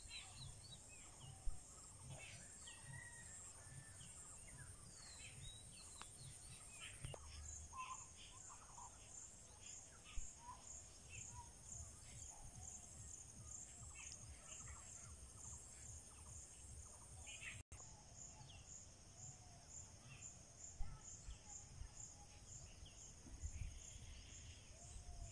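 Faint outdoor ambience: scattered bird chirps over a steady high insect drone that pulses regularly, with a few brief soft knocks.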